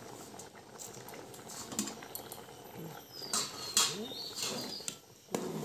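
A metal ladle stirring thick milk pudding in an aluminium pot, with a few sharp scrapes and clinks about three and a half seconds in. Short animal calls sound in the background.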